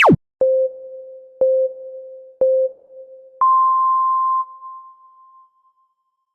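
Electronic countdown beeps in the pattern of a race start signal: three short, lower beeps a second apart, then one longer, higher beep that fades away. A quick falling swoop from the previous effect ends just at the start.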